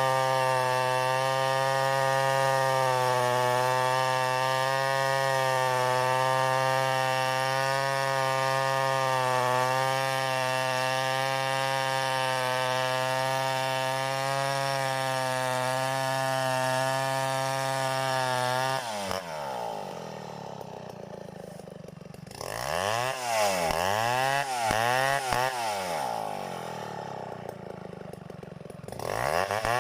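Two-stroke chainsaw running at a steady high speed for about eighteen seconds, then dropping to idle and being revved up and down several times.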